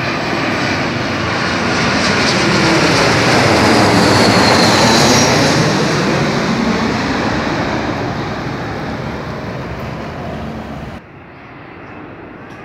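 Twin-engine jet airliner on landing approach passing low overhead: the engine noise swells to a loud peak midway, with a high whine that falls in pitch as it goes past, then fades away. Near the end the sound drops suddenly to a quieter, duller rumble.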